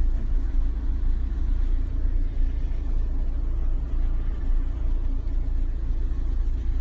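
A van's engine running, heard from inside the cab as a steady low rumble.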